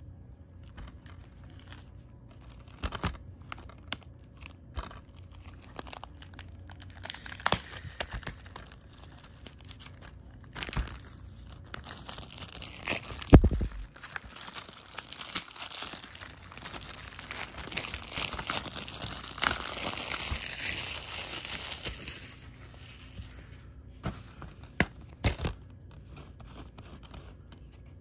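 Thin plastic shrink wrap being torn and peeled off a plastic DVD case, crinkling steadily through the middle stretch. The case is handled with scattered clicks and taps, a loud knock about thirteen seconds in, and a few sharp clicks near the end.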